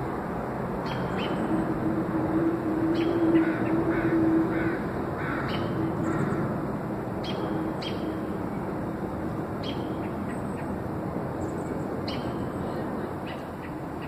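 Birds chirping: short, sharp chirps repeat every second or so, with a few lower, rougher calls a few seconds in. Under them runs a steady background hum that swells for a few seconds near the start.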